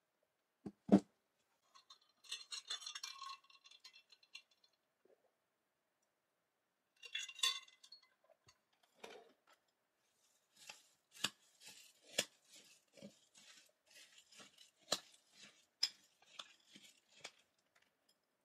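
A thump about a second in as a tumbler is set down on a table, then some rattling and clinking. From about ten seconds in, a metal spoon repeatedly clinks and scrapes against a ceramic bowl of cereal as it is eaten.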